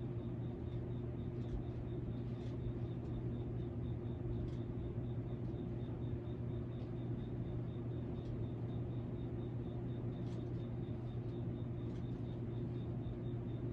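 Hampton Bay Tiffany Sonoma ceiling fan's spinner motor running with a steady low hum, with a faint high whine above it and a few light ticks.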